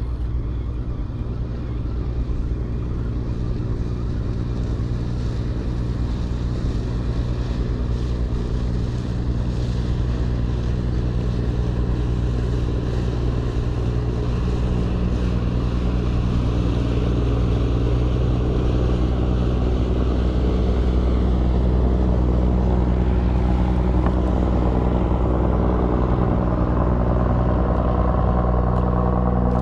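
Motorboat engine running steadily, with a low drone that grows gradually louder as the boat passes close by.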